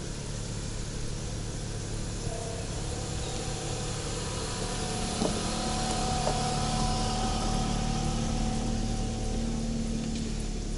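An SUV driving slowly past, its engine running at low revs. It grows louder as it draws near about halfway through, then eases slightly as it moves away.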